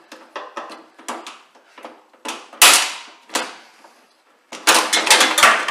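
Metal clicks and knocks as a screwdriver levers a washing machine drum's suspension spring hook in the slot of its steel top bracket, working the spring loose. One sharp metallic clack comes about two and a half seconds in, and a quick run of clanks near the end.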